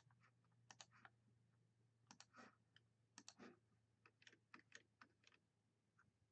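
Faint computer mouse clicks in small clusters, over a low steady hum.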